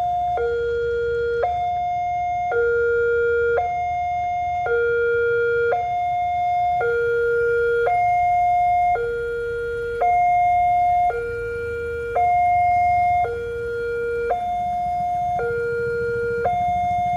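Railway level-crossing warning siren sounding a two-tone hi-lo alarm: a higher and a lower note alternate evenly, each held about a second, warning that a train is approaching.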